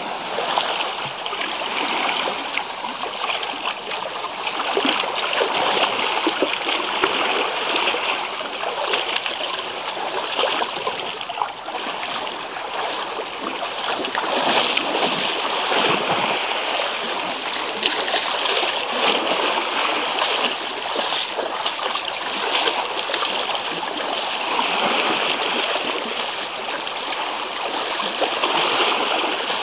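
Sea water washing and splashing steadily among the rocks and boulders of a rocky Black Sea shore, a constant rushing wash that swells and eases a little without a clear rhythm.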